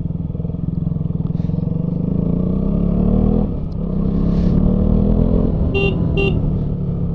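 Motorcycle engine accelerating: its pitch climbs, drops at a gear change about three and a half seconds in, then climbs again. Two short horn beeps near the end.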